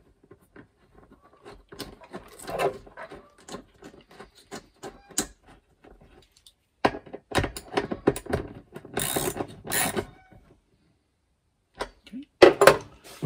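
Socket ratchet wrench clicking in runs of rapid ticks as a cable terminal nut is tightened down on a DC-DC charger, with a few louder clicks near the end.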